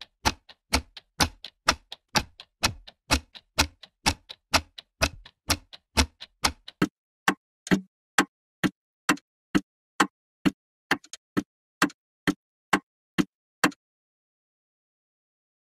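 Sharp ticking clicks in a steady rhythm of about two a second, stopping a couple of seconds before the end.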